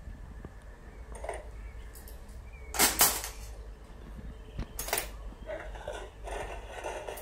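Stainless steel surgical instruments clinking against a steel instrument tray as they are handled and put down, loudest in two sharp clinks about three seconds in and another near five seconds, with softer handling noise between.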